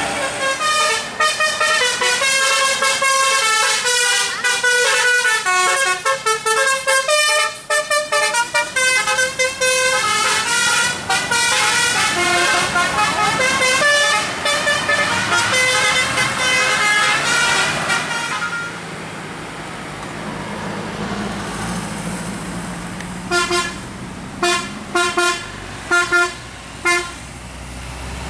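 Tour bus's multi-tone basuri 'telolet' horn playing a fast, ever-changing run of notes for about 18 seconds. The bus engine is then heard running, and near the end comes a series of about six short horn toots.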